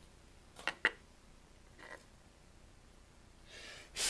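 Hand scraper flaking a cast-iron machine way: two short sharp clicks just under a second in, a faint scrape about two seconds in, and a longer, louder scraping stroke near the end.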